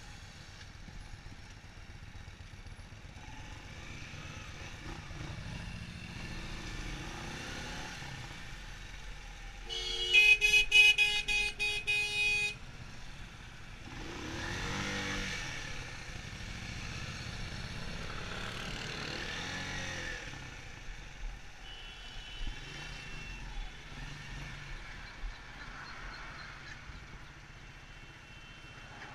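Road traffic noise with vehicles passing by, and a vehicle horn honking in a quick run of blasts for about two and a half seconds near the middle.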